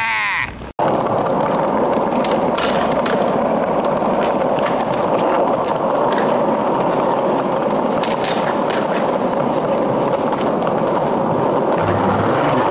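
Skateboard wheels rolling over smooth pavement, a steady roar with a few light clicks. The sound cuts out briefly just under a second in, then the rolling runs on.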